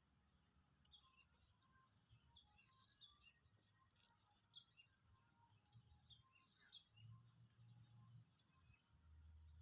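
Near silence: faint outdoor ambience of scattered small-bird chirps over a steady high insect drone.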